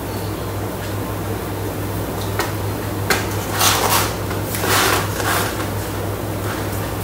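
Metal serving spoon scraping and clinking against a bowl as thick meat sauce is scooped out and spooned into a foil tray, with a few short scrapes near the middle. A steady low hum runs underneath.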